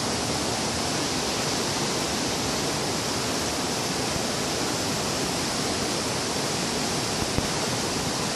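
Steady, even rushing noise with no rhythm or pitch, and one brief click about seven seconds in.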